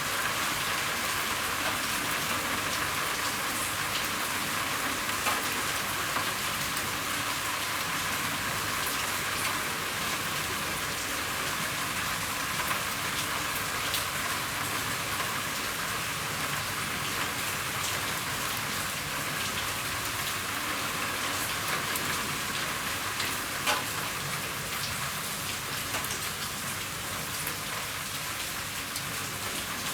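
Steady rain falling on a roof: a dense, even hiss with scattered sharper ticks of individual drops, easing slightly near the end.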